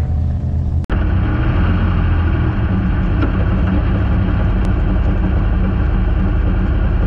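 Jimco Class 1 desert race car's engine running steadily at low speed, heard from the car's own onboard camera as it creeps along in a line of off-road vehicles, with a brief dropout about a second in.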